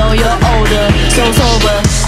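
Background music with a steady drum beat, about two beats a second, and a melody line over it.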